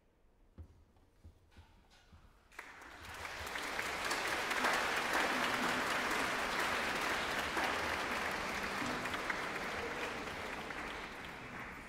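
Audience applauding, starting suddenly a little over two seconds in after a few faint knocks, swelling quickly to a steady level and tapering off near the end.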